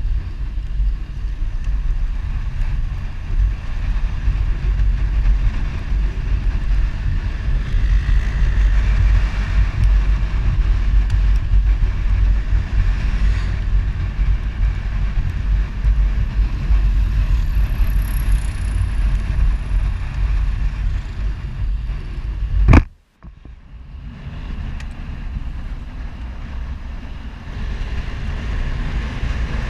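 Wind and road noise buffeting the camera microphone on a moving motorcycle, a heavy fluttering rumble. About 23 seconds in there is a sharp click, the sound drops out for a moment, and the rushing noise comes back quieter.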